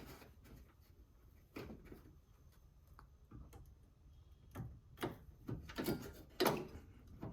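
Scattered light clicks and knocks of metal parts being handled as a hood latch is held in place and its rivet holes lined up, the loudest knock about six and a half seconds in.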